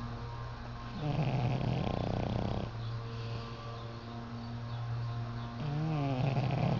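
Dog snoring in its sleep: two long snores, the first starting about a second in and the second near the end, over a steady low hum.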